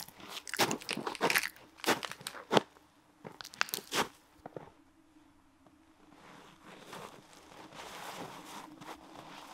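Irregular crunching steps on dry leaves and twigs, a quick run of sharp crunches over the first four seconds. From about six seconds in, a soft, even hiss swells up.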